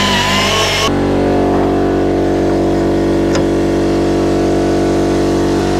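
Air compressor running with a steady, loud hum. For about the first second a power tool whines over it, wavering slightly in pitch, then stops; a single light click about three seconds in.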